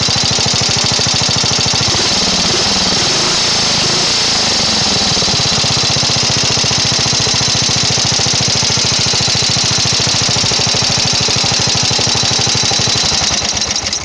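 Briggs & Stratton 12 hp flathead vertical-shaft lawn tractor engine running steadily while its carburetor idle screws are adjusted to set the idle; its note wavers a few seconds in. The sound cuts off near the end.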